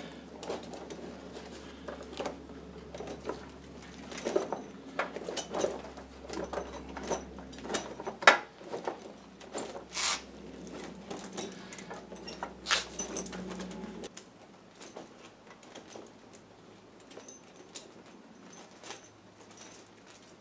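Steel tire chains clinking and rattling as they are pulled and worked over a tractor's rear tire, with scattered sharper clanks of the links. The handling is busiest through the first two-thirds, with one loud clank about eight seconds in, then thins out to fewer, quieter clinks.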